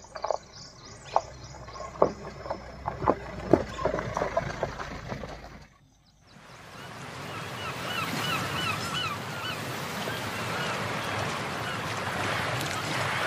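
Mahindra Scorpio SUV driving over a rocky dirt track, loose stones cracking and knocking under its tyres over a low engine rumble. After a brief drop-out, a steady outdoor background with a bird calling in quick, repeated chirps.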